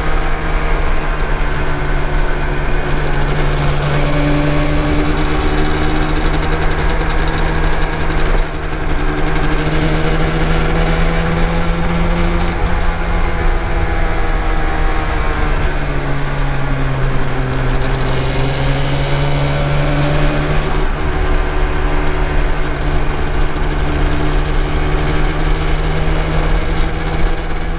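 Yamaha TDR250's two-stroke parallel-twin engine running while the motorcycle is ridden, its note slowly rising and falling with engine speed over steady wind and road noise.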